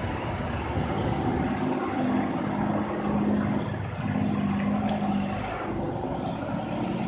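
Diesel engine of a heavily loaded Mercedes-Benz truck pulling up a steep bend, a steady drone that breaks off briefly about four seconds in and then picks up again.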